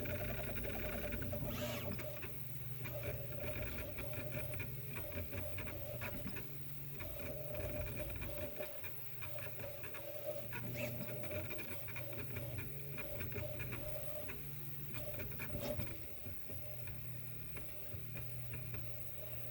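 Prusa i3 MK3S 3D printer on a Bear frame running: stepper motors sing in short changing tones over a steady fan hum, with rapid irregular ticking. This is the unusual noise the owner is asking about.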